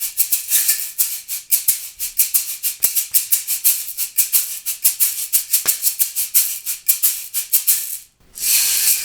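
Sealed fibreglass Latin Percussion shaker played in a steady, even rhythm of about six strokes a second, loud and sharp. Near the end the rhythm stops and gives way to a brief continuous hiss.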